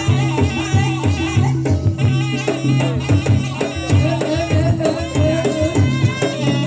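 Live jaranan campursari music for a Javanese horse-trance dance: hand drums keep a steady beat under a bending, ornamented melody line.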